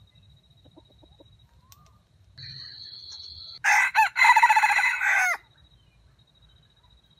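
Red junglefowl rooster crowing once, about halfway in: a short crow broken into three parts that cuts off abruptly.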